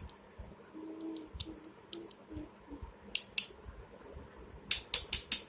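Sharp little clicks and taps from small parts of a flip phone being worked loose during a teardown: two about three seconds in, then a quick run of five near the end.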